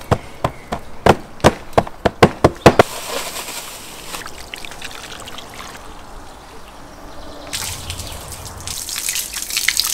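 Hands slapping and pressing coarse salt into a metal baking tray: a quick run of sharp, crunchy pats through the first three seconds. After that a steady trickling hiss that grows louder near the end.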